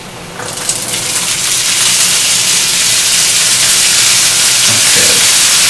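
Wet black beans tipped from a colander into a hot pan of olive oil and sautéed garlic, setting off a sizzle that starts about half a second in and swells into a loud, steady hiss as the water hits the oil.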